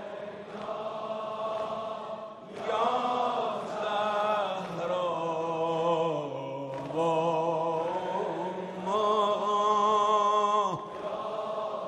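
A man's solo voice chants a Shia mourning lament (maddahi) in long, drawn-out phrases without clear words. The last held phrase wavers in pitch and cuts off sharply near the end.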